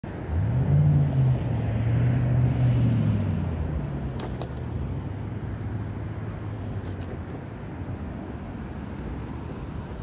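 A motor vehicle's engine passing on the street, its pitch rising and dipping early on, loudest for the first few seconds and fading away by about four seconds in. A steady outdoor rumble of traffic continues beneath, with a couple of faint clicks.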